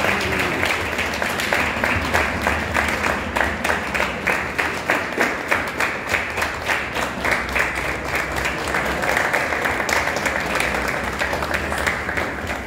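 A crowd clapping together in a steady rhythm, about four claps a second.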